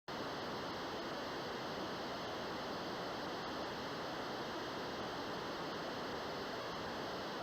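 Steady, even hiss of static-like noise that starts abruptly and holds at one level without change.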